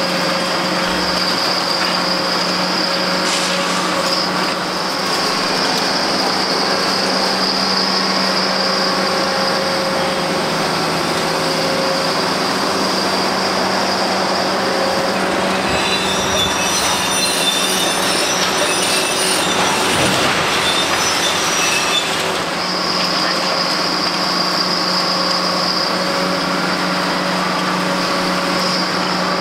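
Kobelco SK850 demolition excavators working a concrete structure: a steady engine drone under a steady high whine. Midway, for several seconds, the whine gives way to irregular high squealing and grinding, with a single knock, as the attachments crush concrete and steel.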